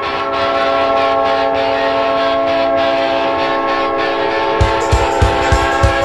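Winnipeg Jets arena goal horn blowing one long, steady, deep chord-like blast over a noisy crowd rush. About four and a half seconds in, the drum beat of the goal song comes in, about three beats a second.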